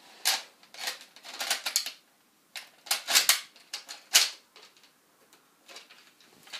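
Plastic clacks and clicks of a Nerf Elite Retaliator's priming slide and mechanism being worked, in several quick bursts with the loudest clack about four seconds in and fainter clicks after. The blaster has jammed after an attempt at rapid fire.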